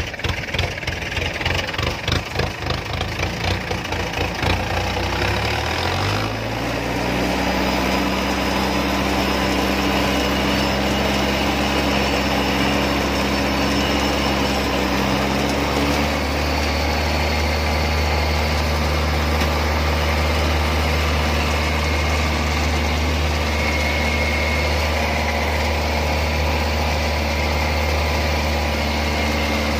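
Engine of a small farm vehicle carrying rice sacks, heard from on board. It pulses unevenly at low revs for the first few seconds, revs up about five to six seconds in, then runs steadily as it drives, its note changing about halfway through.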